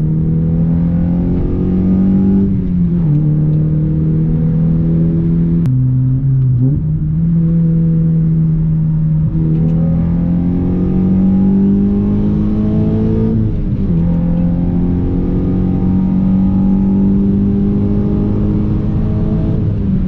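Honda Civic Si's K24 four-cylinder engine pulling hard under acceleration. Its pitch climbs and then drops sharply three times as the driver shifts up through the gears with the short shifter.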